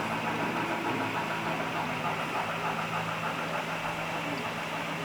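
Model train running on the layout: a steady mechanical running noise with a constant low hum underneath.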